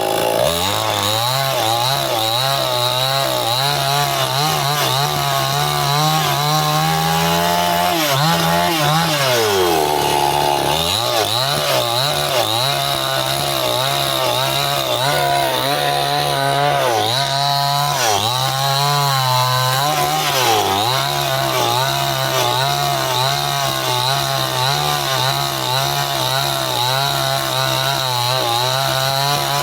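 Stihl two-stroke chainsaw running at high revs while cutting through wood. The engine pitch sags a few times as the chain loads up in the cut and then picks back up, most deeply about ten seconds in.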